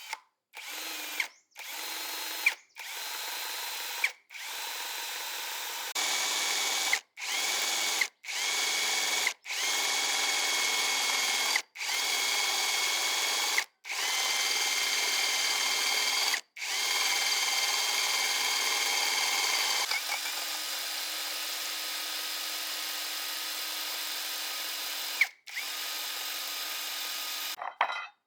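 Handheld electric power tool running in a series of short runs with abrupt stops, a steady high motor whine. About two-thirds of the way through, a longer run has a lower tone.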